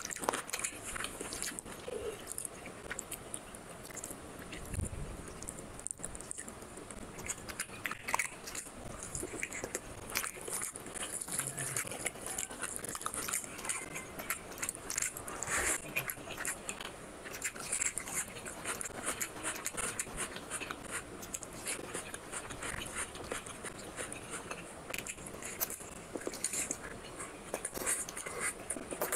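A person eating chicken curry and rice by hand: wet chewing and biting with many small, irregular mouth clicks and smacks.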